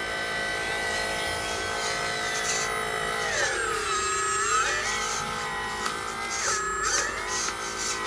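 Electric drive motor and gearbox of a homemade 1/6-scale RC truck whining, steady at first, then dropping in pitch and climbing back twice as the motor slows and speeds up.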